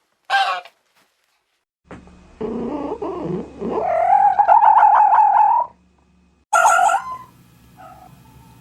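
A sequence of animal calls: a short honk, a pause, then a low wavering growl that rises into a long, pulsing yowl. A brief loud call follows about a second later, and another at the end.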